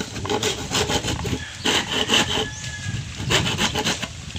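Handsaw cutting across a green bamboo pole, in quick repeated back-and-forth strokes.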